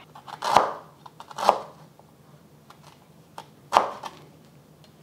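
Chef's knife slicing fresh ginger thinly on a wooden cutting board: three sharp knocks of the blade on the board, the first two about a second apart and the third a couple of seconds later, with fainter taps between.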